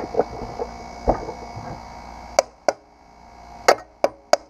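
Hand tool knocking and tapping on the crankcase side cover of a Predator 212 engine to break it loose: scattered sharp metallic clicks, one knock with a dull thump about a second in, the taps coming quicker near the end.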